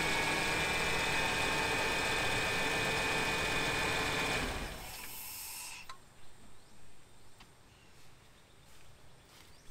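Ford 4.9 L inline-six in an F-150 idling with a steady whine, the AC compressor engaged. About four and a half seconds in the engine is switched off and runs down to quiet within about a second, a shutdown after smoke was seen under the hood.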